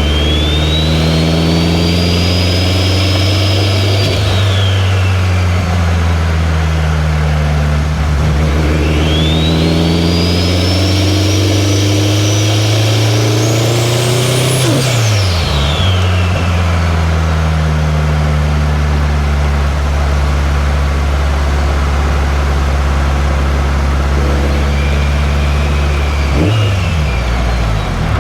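2003 Subaru WRX's turbocharged flat-four engine pulling under acceleration. Its revs climb and then drop at each upshift, about 4 s in, about 15 s in, and again near the end. A high turbo whistle rises as it spools and falls away as each shift comes.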